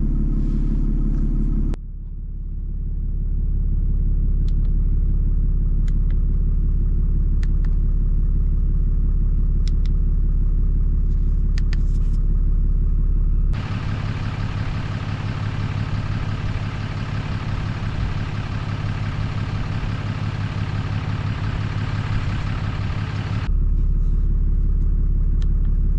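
Ram 2500 pickup truck running, a steady low rumble heard across several cut-together clips. From about 13 to 23 seconds in, a steady hiss sits over the rumble.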